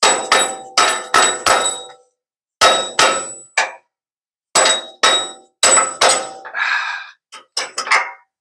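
Hammer blows on steel, about fifteen sharp ringing strikes in bunches of three to five, knocking a bolt into a lift-kit suspension bracket.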